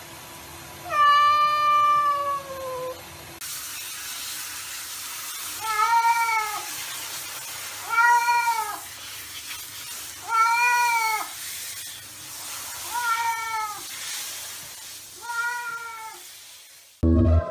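A cat gives one long meow that falls in pitch at the end, over a running tap. Then a wet cat meows five times, about every two and a half seconds, over the steady hiss of a hand-held shower spraying it.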